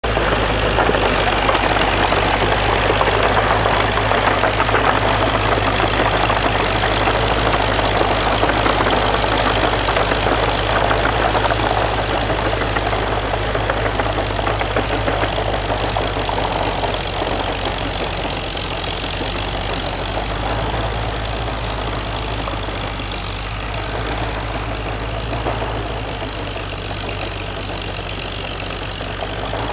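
Oliver OC-6 crawler tractor's engine running steadily as it drags a loaded sled of wet moss, loudest for about the first twelve seconds and then easing a little as it moves off.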